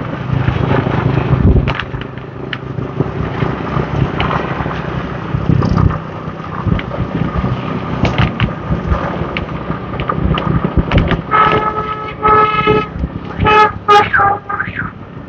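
Steady wind and road noise from riding a motorbike in traffic. Near the end a vehicle horn sounds: two short blasts, then a quick run of short toots.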